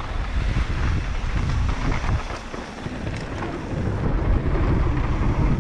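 Wind buffeting the microphone over the rumble of a mountain bike rolling fast down a dirt trail, with a few faint rattles and knocks from the bike.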